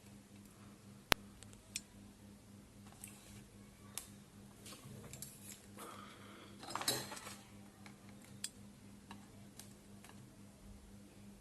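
Faint clicks and taps of small metal hand tools on a phone circuit board during connector soldering, with one sharp click about a second in and a short scraping burst a little past the middle, over a steady low hum.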